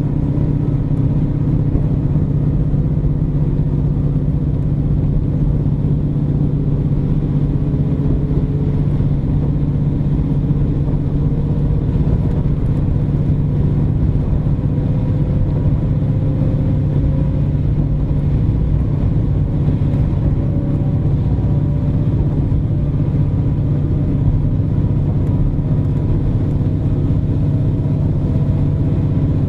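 KiHa 47 diesel-hydraulic railcar running, heard from inside the car: a steady low engine drone over wheel-and-track rumble, with a faint whine slowly rising in pitch.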